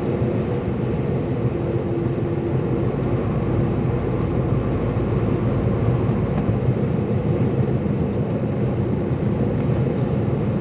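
Tractor-trailer's diesel engine and road noise heard inside the truck cab, a steady low drone at cruising speed on the highway.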